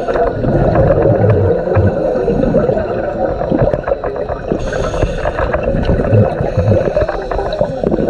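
Underwater sound picked up by a diver's camera: a continuous crackling and rushing with scattered clicks and low thumps, and a brief hissing burst about halfway through.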